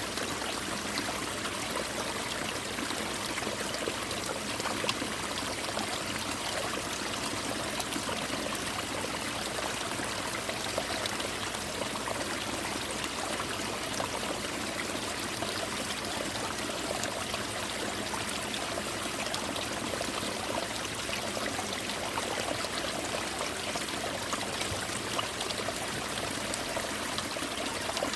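Mountain stream water pouring and spattering onto ice-covered rocks like rain, a steady rushing hiss with fine splashing ticks.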